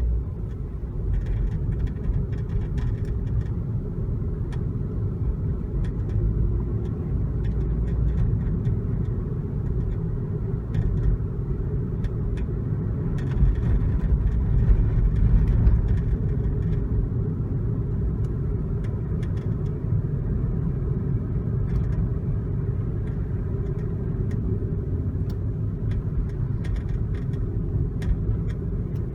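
Daihatsu Tanto kei car with an abnormal noise: a steady low rumble with scattered light ticks and rattles, swelling for a few seconds about halfway through.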